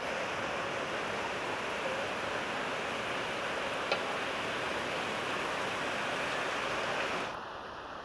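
Hot spring water rushing steadily through wooden channels, an even splashing noise that dips briefly near the end.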